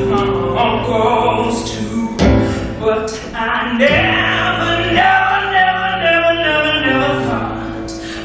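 A woman singing a show tune over a theatre pit orchestra, with held low accompanying notes. There are two sharp percussive hits, about two and four seconds in.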